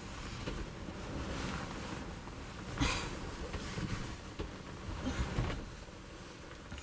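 Duvet and bedding rustling as a person shifts and sits up in bed, with the loudest rustle about three seconds in.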